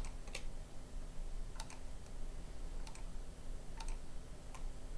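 Computer mouse clicks: about six short, sharp clicks at uneven intervals, two of them close together like a double-click, over a faint steady hum.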